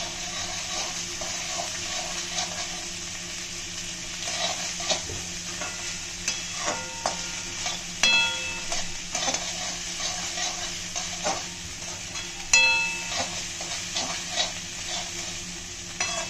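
Chopped vegetables sizzling in a metal kadai over a high gas flame while a perforated steel spatula stirs and tosses them, scraping and clanking against the pan. A few strikes make the pan ring, the loudest about twelve and a half seconds in.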